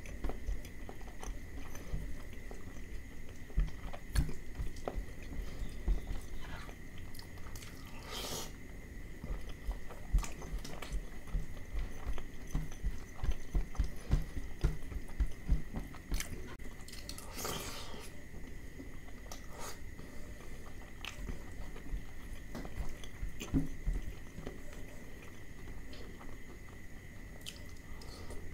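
Close-up chewing and wet mouth clicks of a man eating curry and rice by hand, with two short hissy bursts about 8 and 17 seconds in. A faint steady high tone runs underneath.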